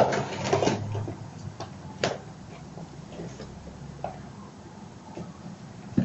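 Kittens' claws scrabbling and scratching on a rope-wrapped cat play cube, a flurry in the first second, then a sharp knock about two seconds in and scattered light ticks of paws and claws on a hard tiled floor.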